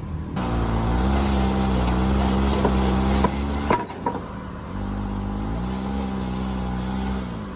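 An engine revved and held for about three seconds, dropping back just after the middle with a couple of clicks, then revved and held again for nearly three seconds before easing off near the end.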